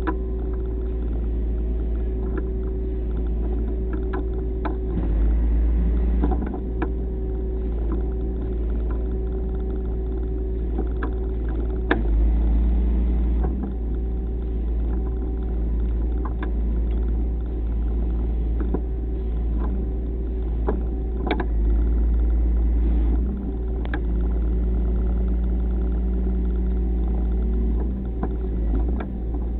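A vehicle engine running steadily, its low rumble swelling for a second or two three times, with scattered light clicks over it.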